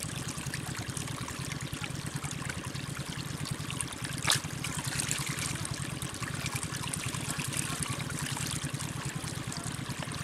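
Water trickling and running steadily through a small muddy channel, with one sharp click a little over four seconds in.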